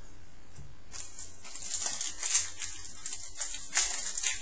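Trading cards and foil pack wrappers being handled, rustling and crinkling in irregular bursts that start about a second in and grow busier toward the end.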